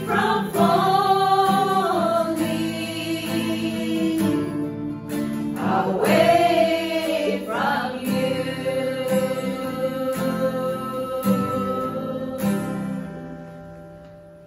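A small group of women singing a gospel song together to strummed acoustic guitar, ending on a long held final note that fades out near the end.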